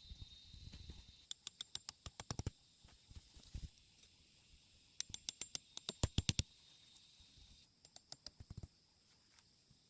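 Three quick runs of sharp clicks or taps, each lasting about a second, over a faint steady high-pitched insect drone.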